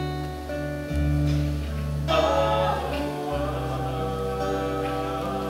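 Unplugged band playing an instrumental passage between sung verses: strummed acoustic guitar chords over sustained low bass notes, with a sharp strum about two seconds in.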